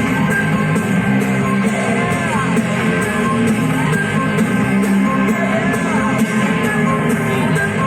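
Rock song with singing and guitars, played as a steady music track.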